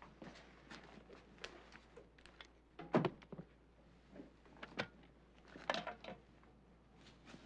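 Scattered soft knocks, clatters and wet handling noises, the loudest about three seconds in, as a severed head is lifted and set down into a metal lab tray, over a faint steady low hum.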